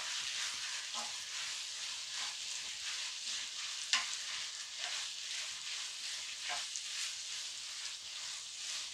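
Ground beef and walnuts sizzling in a frying pan, the meat's liquid nearly cooked off, while a spatula stirs and scrapes through them. A few sharp taps of the spatula on the pan stand out, the loudest about four seconds in.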